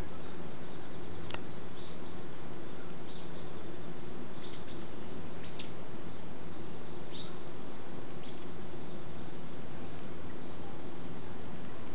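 Garden ambience: a steady outdoor hiss with about ten short, high chirps scattered at irregular intervals, and one sharp click about a second in.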